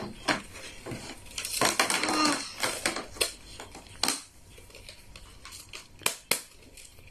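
Packaging rustling and crackling in short, irregular bursts with a few sharper clicks as a small pink package is handled and opened.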